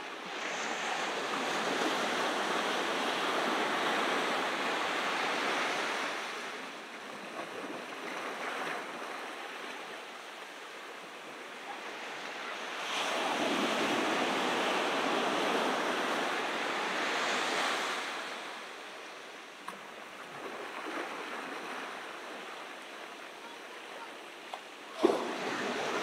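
Ocean surf breaking on a beach: two swells of wave noise, the first right at the start and the second about halfway through, each fading into a quieter wash. A single sharp knock near the end.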